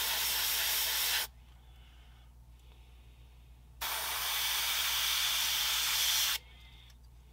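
Airbrush spraying thin acrylic paint: a steady hiss that stops about a second in, then a second burst of about two and a half seconds in the middle.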